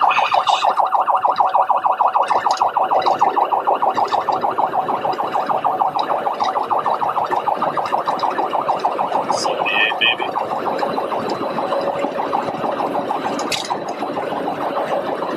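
Police cruiser siren wailing in a fast, rapidly pulsing yelp, with a short electronic beep about ten seconds in.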